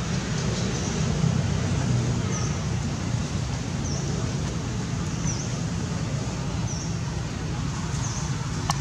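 Steady outdoor background noise with a low rumble, and a short high chirp that repeats about once a second; a single sharp click near the end.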